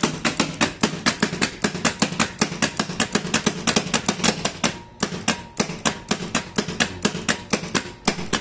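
Rapid, regular clicking from the overhead crane trainer's hoist circuit as the up motion runs, about seven clicks a second over a low hum. The clicking stops for a moment about halfway through, then starts again.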